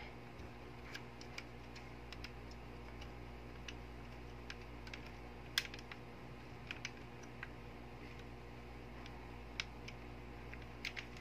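Faint, scattered small clicks and taps of the parts of a spring-type airsoft M1911 pistol being handled and fitted together, with one sharper click about halfway through, over a low steady hum.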